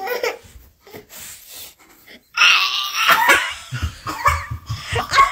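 A man and a woman burst into loud laughter about two seconds in, after a quieter start.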